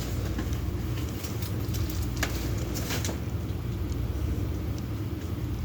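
Car engine running with a steady low rumble, with a couple of light clicks about two and three seconds in.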